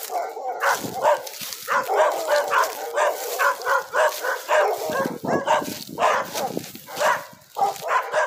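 Dog barking repeatedly, a quick series of short barks at about three a second.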